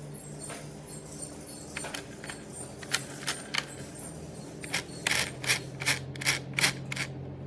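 A series of sharp clicks and knocks over a faint low steady hum, ending in a quick run of about seven loud clicks, two to three a second, in the second half.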